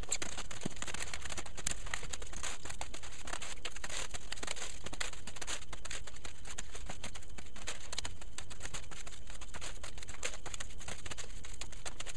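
Folded paper origami cranes rustling and crinkling as they are handled, picked up and sorted by hand, with many small irregular crinkles throughout.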